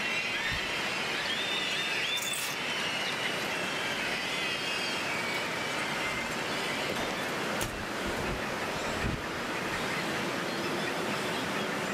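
Steady outdoor city noise, an even wash of traffic and crowd sound, with a few short high chirps in the first few seconds and two dull low thumps near the end.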